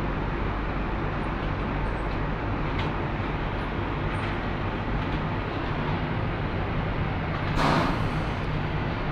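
Powder coating booth's extraction running with a steady noise and low hum, under the hiss of air from a hand-held powder spray gun. A short, louder burst of air hiss comes about seven and a half seconds in.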